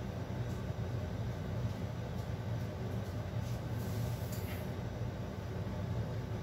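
Steady low rumble of a covered pot simmering on a gas stove, with a few faint ticks and a brief hiss about four seconds in.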